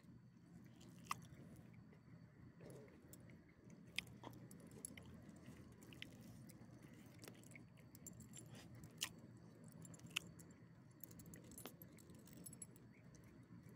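Small dogs eating rotisserie chicken from a hand: faint chewing, with scattered sharp clicks and the jingle of collar tags.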